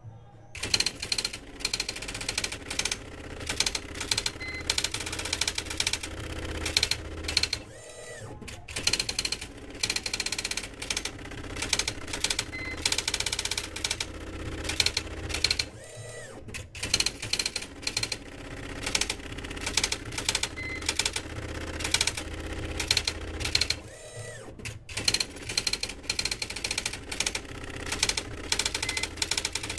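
Dot-matrix impact printer printing: the print head chatters rapidly across the paper in runs, breaking off briefly about every eight seconds.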